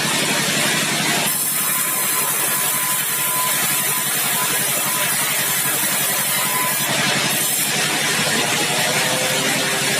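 Sawmill engine running steadily under a loud hiss, which shifts a little over a second in and again near the end.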